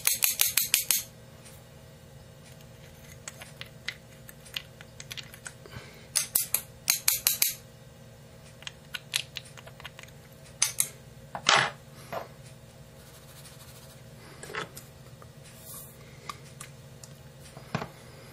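A 12-gauge shotgun shell is being worked in a small hand tool on a workbench, making two runs of rapid sharp clicks, one at the start and another about six seconds in. Scattered single knocks and taps of handling follow.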